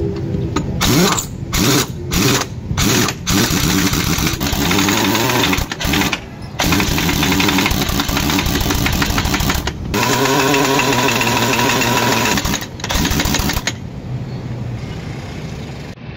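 Heavy impact wrench hammering on a dump truck's wheel lug nuts: several short trigger bursts, then longer runs of rapid hammering, stopping a little before the end.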